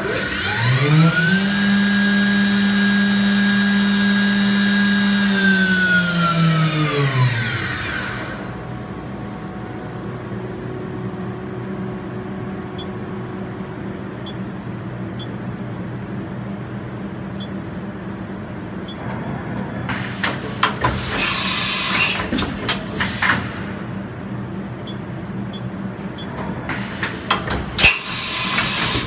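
Haas VM-2 vertical machining center's spindle speeding up with a rising whine, holding speed for a few seconds, then winding down within about eight seconds. About twenty seconds in, and again near the end, the side-mount tool changer swaps a tool: bursts of air hiss with clacks and clunks.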